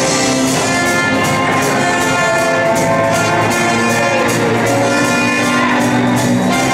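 Live show-choir backing band playing an upbeat pop number, with brass over a steady drum beat.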